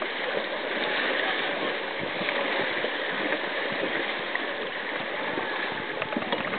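Fast river water rushing and splashing around an inflatable raft, a steady wash with many small splashes.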